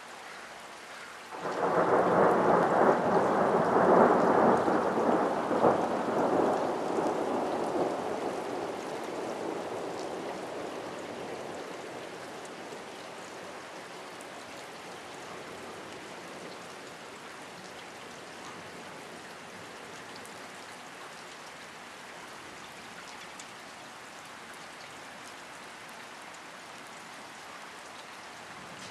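Thunder breaks in suddenly about a second and a half in, rumbling loudly for several seconds and dying away over roughly ten seconds. Steady rain hisses throughout.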